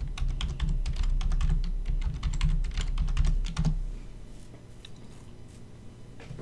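Computer keyboard typing: a quick run of key clicks lasting about four seconds, then stopping.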